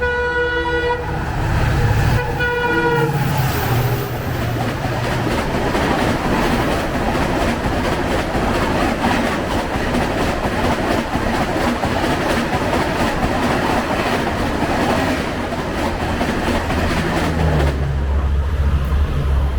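A locomotive horn sounds two short blasts, then an express train passes at speed with a steady rush of wheels and coaches on the rails. A low hum comes in near the end.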